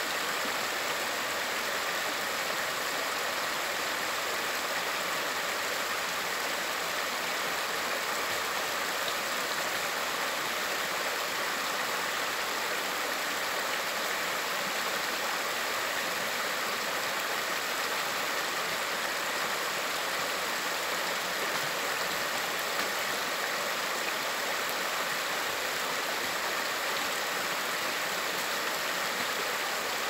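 Shallow stream water flowing and rippling over a low line of rocks: a steady, even wash of water noise.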